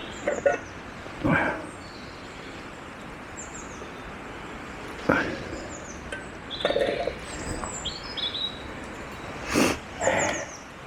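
Small birds chirping now and then in woodland, over a low steady background, with a few brief knocks and clatters, the loudest about a second in and near the end.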